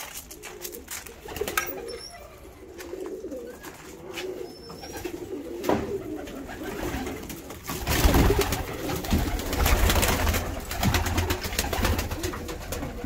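Domestic pigeons cooing, low wavering coos repeating. About eight seconds in, loud rustling and knocking joins them.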